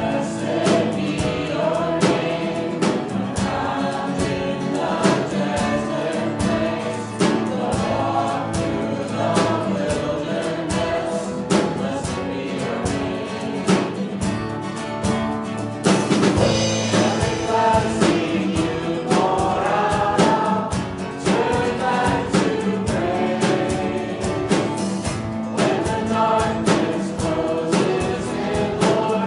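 Congregational worship song: many voices singing together over a band with guitar and a steady beat.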